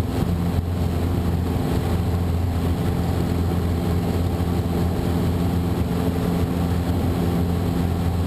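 Cessna 150's four-cylinder Continental O-200 engine and propeller at full takeoff power, mixture leaned for maximum RPM, a steady drone heard inside the cabin during the climb-out.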